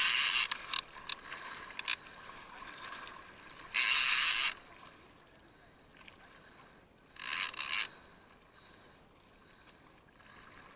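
Fishing reel buzzing in three short bursts, each under a second, with a few sharp clicks in the first two seconds, as a hooked bull shark pulls against the bent rod.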